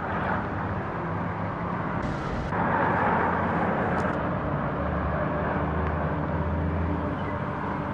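Street traffic: cars running and passing on a road, a steady noise that grows louder for a while a few seconds in. A low engine drone sets in over the second half.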